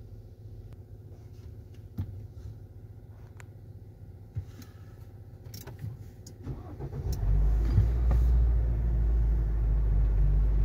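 Ford Territory engine vibration: a few clicks over a faint idle, then about seven seconds in a heavy low drone comes on and holds steady, loud ('Brrrr'). It is the vibration the owner complains of, traced to a worn engine mount.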